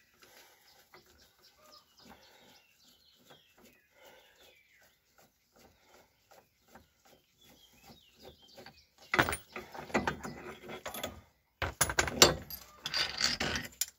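Faint bird chirps, then from about nine seconds in a loud clinking and clanking of steel as a threaded-rod bearing press tool (rod, nut and pressing cups) is loosened and taken off a front wheel-bearing knuckle by hand.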